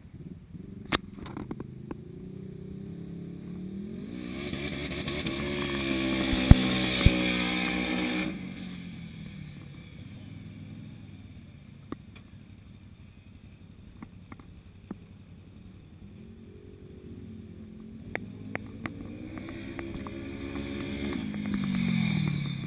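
Side-by-side UTV engine revving as the buggy drives in circles on asphalt. It is loudest, with a hiss of tyres, for a few seconds early on, then eases off. It builds again and drops in pitch near the end.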